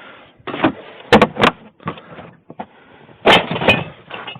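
Several sharp knocks and clatter, a few close together about a second in and a louder one past the three-second mark, with scraping and rustling noise between: handling and work noise.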